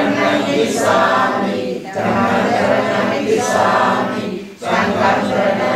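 A group of people chanting together in unison, in phrases about two seconds long with short breaks between them.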